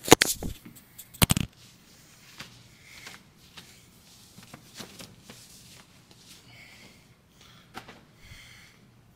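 Clip-on microphone being handled and rubbed at a shirt collar, with two loud scrapes in the first second and a half. Faint fabric rustling follows as a tight compression top is pulled off over the head.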